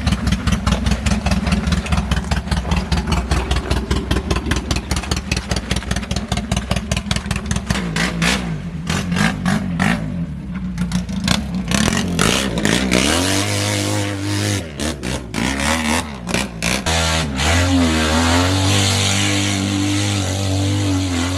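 Small engine vehicle running: a slow, lumpy run of firing pulses at first, then about halfway in the engine note climbs and wavers up and down as it revs and drives.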